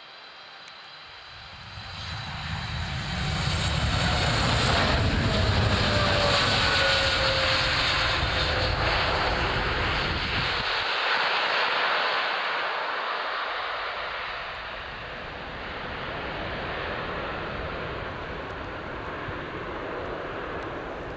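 Boeing 787-8 Dreamliner's two GEnx-1B turbofans at take-off power as the jet goes past. The sound swells to loudest about four seconds in, with a whine falling in pitch as it passes, then slowly fades to a distant rumble.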